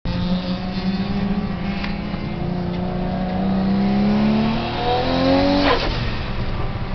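Nissan Skyline R34 GT-R's twin-turbo RB26DETT straight-six pulling hard under acceleration, heard from inside the cabin. Its note rises steadily in pitch, then the revs fall sharply about six seconds in.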